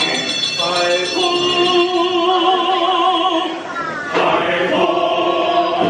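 Attraction soundtrack music with a choir singing long, wavering held notes in two phrases, broken by a short pause about four seconds in.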